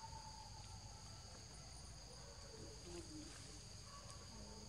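Forest insects chirring in a steady, unbroken high drone at two pitches, faint.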